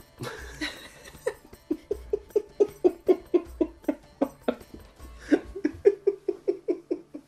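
People laughing heartily in two long runs of quick, rhythmic ha-ha pulses, about five a second, with a short break in the middle.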